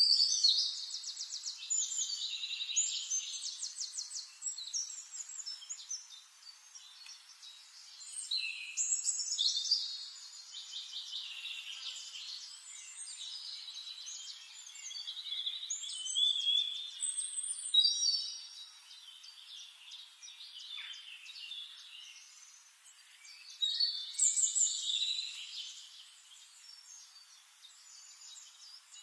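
Forest songbirds singing: rapid high trills and chirping phrases a few seconds long, with quieter gaps between them.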